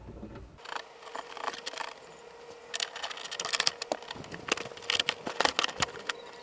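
Carpeted trunk trim liner being handled and pressed back into place by hand: a string of rustles, scrapes and light clicks, busiest in the second half.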